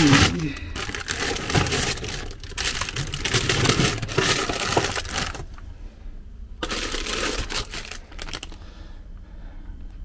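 Plastic food packaging crinkling and rustling as packs of frozen food are handled and stuffed into a compact fridge-freezer. It comes in two stretches, with a short pause about five and a half seconds in.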